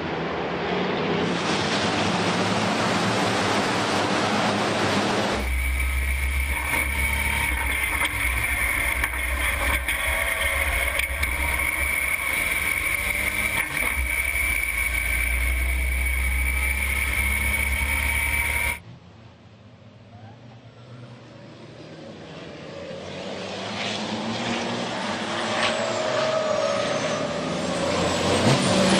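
Racing trucks' turbodiesel engines as the pack accelerates away from a standing start. About five seconds in, the sound changes to on-board audio among the trucks: heavy deep engine rumble with a steady high whine, which cuts off suddenly; after that, trucks heard from the trackside, getting steadily louder as they approach and pass.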